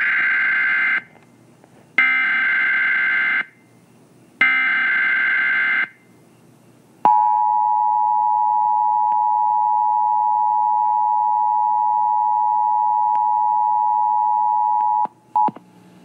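Emergency Alert System tones: three short bursts of digital SAME header data, about a second apart, then the steady two-tone EAS attention signal held for about eight seconds before cutting off, with a brief blip after it.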